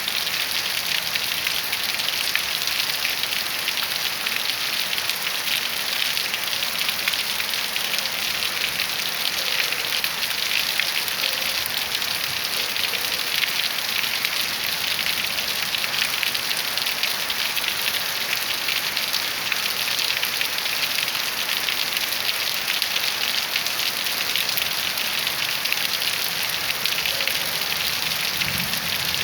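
Heavy rain falling steadily on a surface, a dense, even patter of countless drops without letup.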